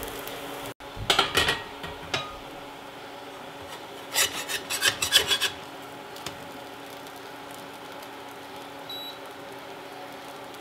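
Metal spatula scraping against a cast-iron skillet as arepas are lifted and turned: a cluster of scrapes about a second in and another around four to five seconds in, over a steady low hum.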